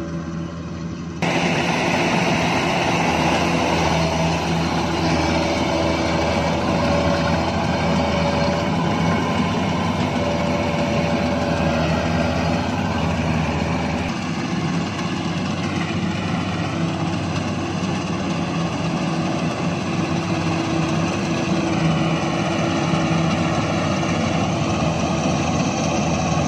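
Kubota combine harvester's diesel engine running steadily while cutting rice, with the whir of its machinery; it gets suddenly louder about a second in, and the engine note dips briefly a couple of times as the load changes.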